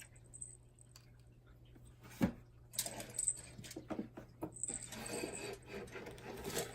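Small hard plastic toy figures clicking and clattering together as they are handled: one sharp click about two seconds in, then a run of irregular clinks and rattles.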